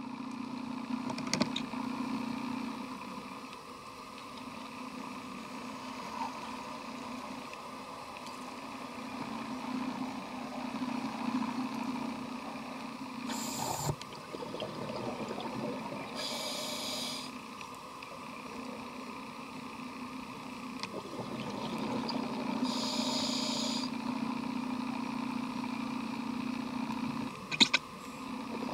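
Underwater sound of scuba breathing through a regulator: a steady low rumble of exhaled bubbles that swells and fades, with three short hissing inhalations through the demand valve. A few sharp clicks near the end.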